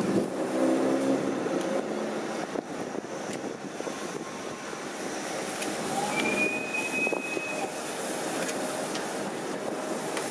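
A train running along a snowed-over line with its plough blades pushing through the snow, a steady rumble and rushing noise. About six seconds in a brief high squeal sounds for a second and a half.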